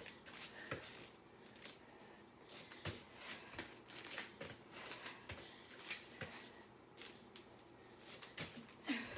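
Faint, irregular thumps and scuffs of hands and feet on the floor during push-ups and jump lunges, about one a second.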